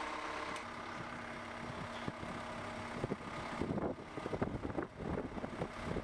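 A faint engine running steadily, with scattered knocks and clatter from about halfway through.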